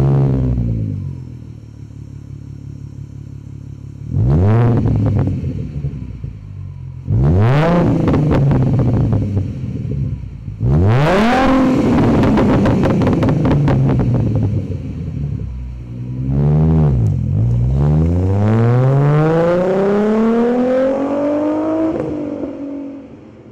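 2011 Ford Mustang 3.7 L V6 through a MagnaFlow stainless-steel aftermarket exhaust: it settles from a blip to idle, is revved sharply three times (about 4, 7 and 11 seconds in), each falling back to idle. Then, about 17 seconds in, it pulls away under acceleration with one long steady rise in engine pitch, easing off near the end.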